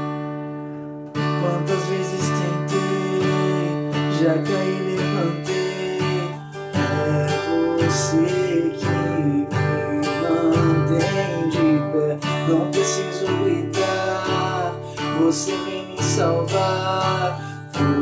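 Acoustic guitar strummed in steady rhythmic chords, playing a song's introduction. The guitar rings down over the first second, then the strumming picks up again just after a second in, moving through a chord progression.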